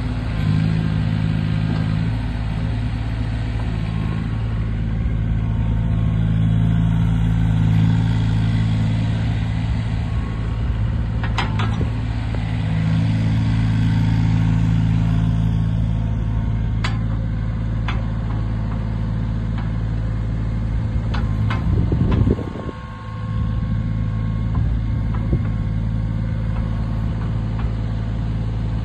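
Yanmar ViO10-2A mini excavator's small diesel engine running steadily while the machine tracks and works its hydraulics, pulling harder for a few seconds at a time. A few sharp clicks come through over the hum, and a little after the middle the sound briefly swells and then dips.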